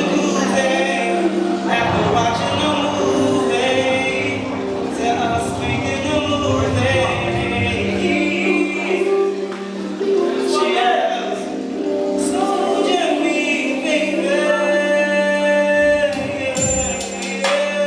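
Live R&B slow jam: singers, with backing vocals in harmony, over a DJ-played backing track with a steady low held note.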